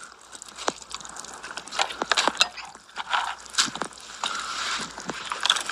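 A metal spatula scraping and clinking irregularly against a cooking pot while food is scooped out.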